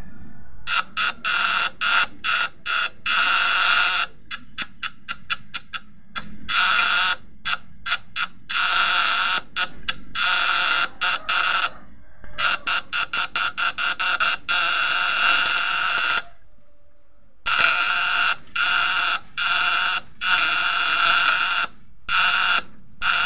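Electric buzz of a homemade fish-shocker's vibrating platina contact points interrupting the battery current to the coil. It cuts in and out in many short spurts and a few runs of a second or more, with a pause of about a second two-thirds of the way through.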